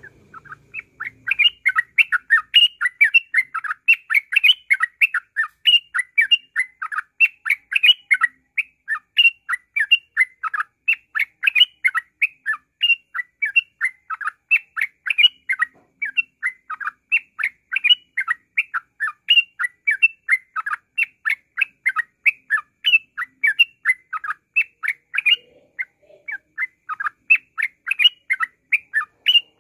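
Yellow-vented bulbul (trucukan) singing 'ngropel': a rapid, unbroken string of short chirpy notes, several a second, that begins about a second in and keeps going without pause.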